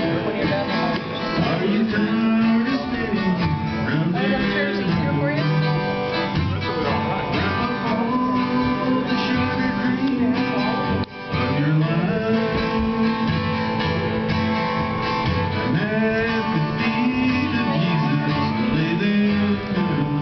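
Acoustic guitar strummed and picked through a country-style tune, with a brief break a little past halfway.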